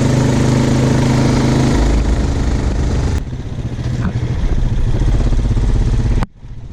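ATV engines running as the quad bikes are ridden, with a heavy low rumble. The sound changes abruptly about three seconds in and cuts out for a moment near the end.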